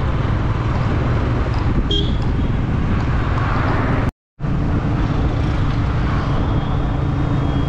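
Motorcycle engine running at a steady speed on the road, with wind and road noise. The sound drops out for a moment about four seconds in.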